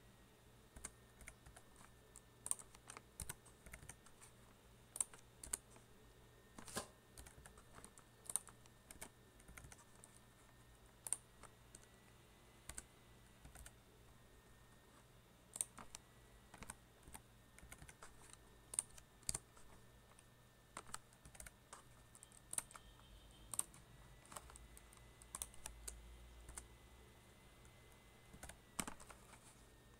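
Typing on a computer keyboard: irregular runs of keystroke clicks, with a short pause about halfway through.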